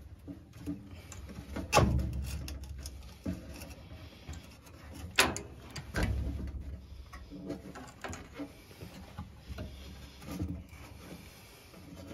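Clicks, knocks and rustling of hands fitting a new inducer motor into a furnace's sheet-metal housing. The two sharpest clicks, about two and five seconds in, are the loudest, with duller knocks after them.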